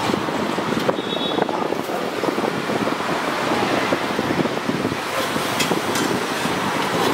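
Steady roadside traffic and street noise, with a few sharp clinks of steel ladles against serving pots midway through.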